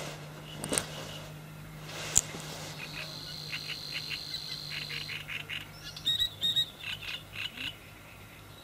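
Pond-side wildlife ambience: a run of short, high chirps repeating for several seconds, over a steady low hum, with a single sharp click about two seconds in.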